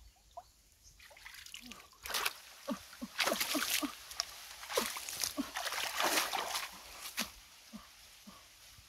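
Shallow muddy stream water splashing and sloshing as hands grab for a catfish: a run of splashes from about two seconds in to about seven seconds. Short low cries sound between the splashes.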